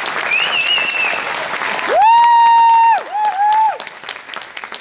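Audience applauding, with a faint whistle early on. About two seconds in, a loud, high whoop close to the microphone is held for about a second, followed by a shorter wavering one. The clapping then thins out.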